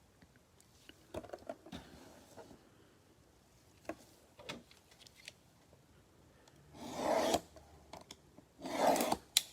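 Trading cards and their pack wrappers being handled: soft rubbing and scraping with small clicks, then two louder rustles near the end.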